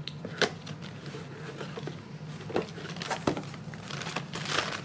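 Handling noise of a cardboard box being opened and a gear puller in a plastic bag slid out onto cardboard: scattered knocks and scrapes, with plastic crinkling near the end. A steady low hum runs underneath.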